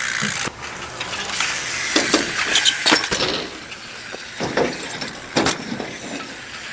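BMX bike rolling on a skatepark surface, with several sharp knocks and clanks of the bike's metal parts hitting the ground.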